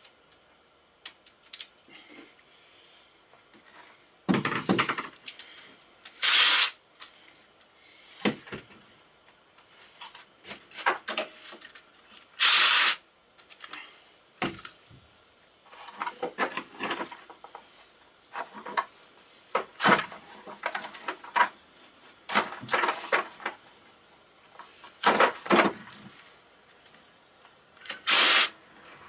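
Hand tools at work on a motorcycle engine: scattered metallic clicks, taps and knocks, with four louder rasping bursts of about half a second each.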